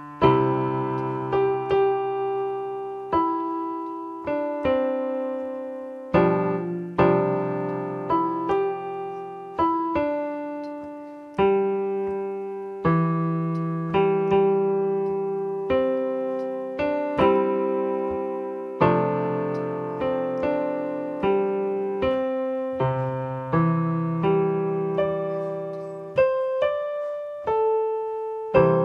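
Electronic keyboard played with a piano voice: chords and melody notes struck about once a second, each left to ring and fade.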